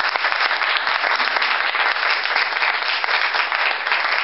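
Crowd applause: many people clapping steadily in response to a call to "make noise".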